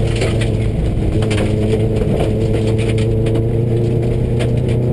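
Subaru rally car's engine running hard at a fairly steady pitch, heard from inside the cabin at gravel-stage speed. Scattered sharp clicks and knocks of gravel striking the car run through it.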